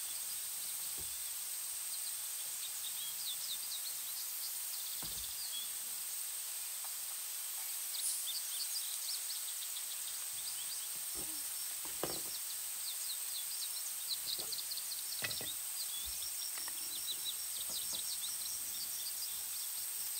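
Outdoor ambience: small birds chirping in quick series of short high notes over a steady high hiss, with a few soft low thumps.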